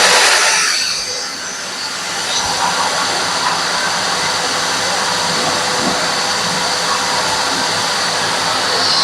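ALTECO VC 1400-25L construction vacuum running at full power, drawing air through its hose and a cyclone separator. It makes a loud, steady rushing hum with a high whine, easing slightly about a second in and then holding level.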